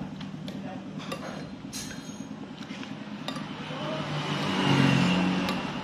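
Spoon and fork clinking against a plate several times while eating, over a steady hum of road traffic that swells as a vehicle passes about five seconds in.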